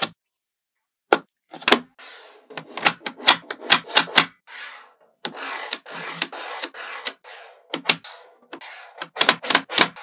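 Small magnetic balls clicking and clattering as strips of them are snapped into place on a magnet-ball model. The sound is an irregular run of sharp clicks with brief rattles between, starting about a second in and growing denser.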